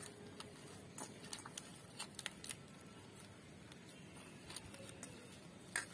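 Hands mashing and mixing boiled potato with spices, chickpeas and bhujia in a steel bowl: faint squishing with scattered small sharp clicks.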